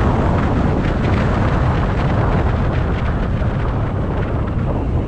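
Steady, loud wind buffeting on the microphone of a camera mounted on a minivan at highway speed, mixed with tyre noise from the road.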